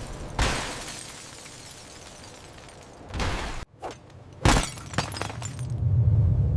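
Crash and shattering sound effects of tornado destruction: a heavy crash about half a second in fading slowly, then a run of sharp crashes from about three seconds in, the loudest about four and a half seconds in. A low rumble builds near the end.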